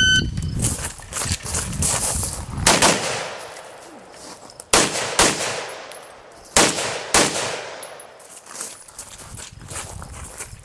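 An electronic shot timer beeps once, then a competitor fires a string of gunshots at the stage's targets: a quick run of shots first, then louder single shots spaced between half a second and two seconds apart, fading to lighter ones near the end.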